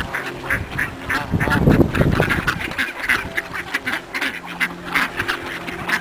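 A crowded flock of mallards quacking over one another, many short calls overlapping, as they jostle to be hand-fed. A brief low rumble about a second and a half in.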